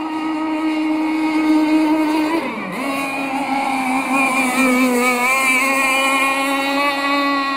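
Aeromarine Conquest Cat RC catamaran's CC Racing 260 two-stroke gas engine, a Zenoah-based motor breathing through a CC steel tuned pipe, running at high revs as the boat speeds across the water. Its pitch dips briefly about a third of the way in, then climbs back and holds steady.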